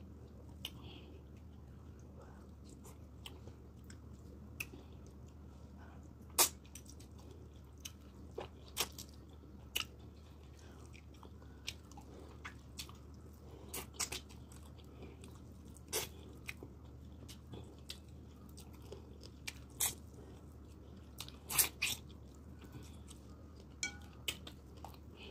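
Close-miked chewing and wet mouth sounds of a person eating fufu with vegetable soup. Scattered sharp smacks and clicks come at irregular times over a steady low hum.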